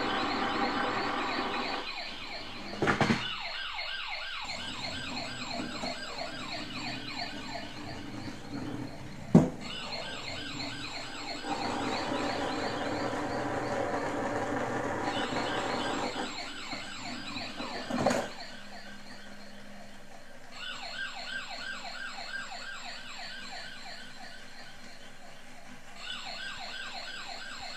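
Toy police car's electronic siren sound effect, a fast warbling wail from a small speaker that switches pattern several times. A few sharp knocks stand out, the loudest about a third of the way in.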